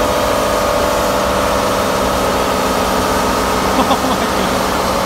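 Pickup truck doing a burnout: the engine held at steady revs over the hiss and screech of the spinning tyres.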